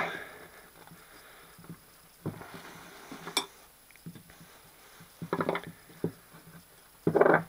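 A hydraulic cylinder piston being pried apart with a screwdriver and worked by hand: a scrape ending in one sharp metal click about three and a half seconds in, then a few short knocks and a louder burst of handling noise near the end.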